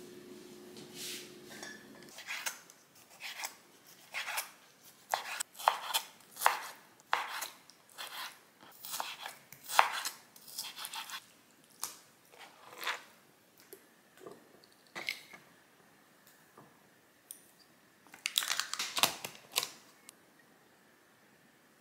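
Kitchen knife cutting raw chicken on a wooden cutting board: a run of sharp knife strikes about two a second, thinning out after about thirteen seconds. Near the end comes a short clatter of a spoon against a glass mixing bowl.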